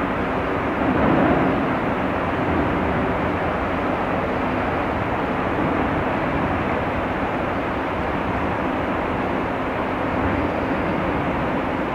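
Steady low roar of a large car carrier's machinery as the ship steams past close by, with a faint low hum running through it.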